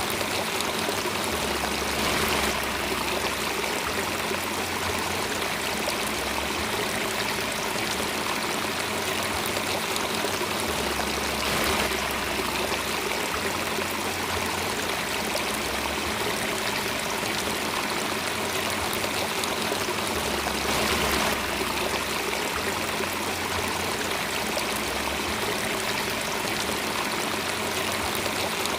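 Running water, a steady even rush like a flowing stream, with a faint steady low tone underneath.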